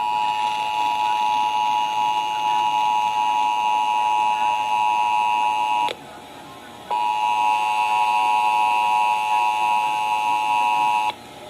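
Emergency Alert System attention signal over FM radio: a steady two-tone beep of about 853 and 960 Hz sounding together. It breaks off for about a second around six seconds in, resumes, and stops near the end.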